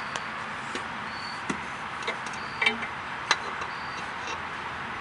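Scattered light clicks and taps of hands and metal parts over a steady background hiss, as the oil filter is put back on under the car.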